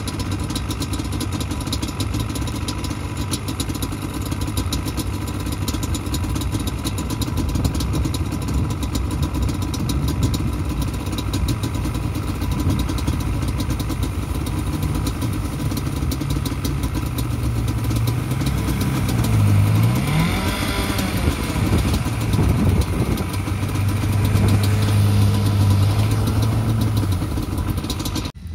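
Sport quad bike (ATV) engine running and revving while riding in snow. Its pitch dips and rises again about two-thirds through, and it runs louder for a few seconds near the end.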